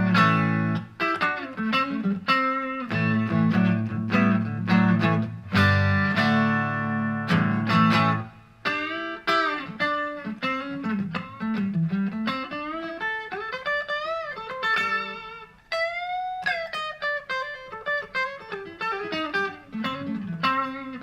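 Fender Modern Player Telecaster electric guitar on its neck single-coil pickup, played clean through a Vox VT20X amp. It opens with a repeated figure on the low strings, and about eight seconds in moves to single-note lines with string bends. This is a familiar Telecaster sound.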